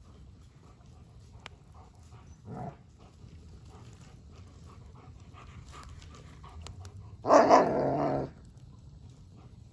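German Shepherd growling while playing with a wooden log: a short, quieter growl about two and a half seconds in, then a loud growl lasting about a second near the end, with its mouth on the log. Faint scuffs and knocks in between as the dog paws the log.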